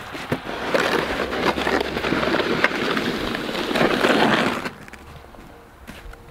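Snow shovel scraping along a paved driveway as it pushes snow, a continuous gritty scrape lasting about four seconds that stops abruptly near the end, followed by faint light crunches.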